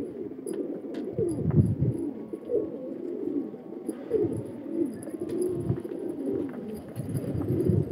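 A flock of domestic pigeons cooing, many birds' calls overlapping continuously.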